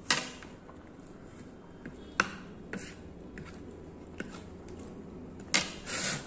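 Metal fork clinking and scraping against a ceramic plate of noodles while eating: a few sharp clinks, the loudest just after the start, about two seconds in and near the end, with smaller ticks between. A short breathy slurp follows the last clink.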